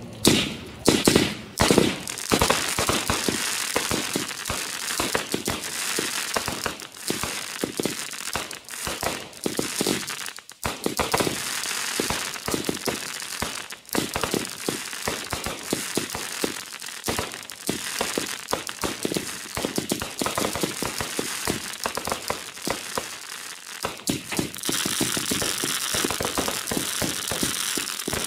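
Consumer firework cakes fired together in a finale: a few loud bangs in the first two seconds, then a dense, unbroken crackle of many small reports from crackling stars.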